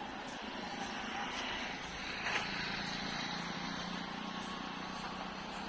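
Steady vehicle noise, with a faint low hum coming in about halfway through.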